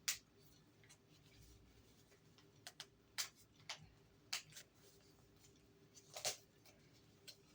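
Handling and opening a small mail package: scattered short crinkles and clicks of paper or plastic packaging, about eight in all, the loudest at the start, in the middle and a little after six seconds.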